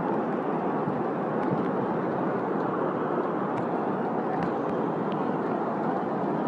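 Steady, even wash of ambient noise from a vast crowd of pilgrims in an open courtyard during rain, with a few faint clicks.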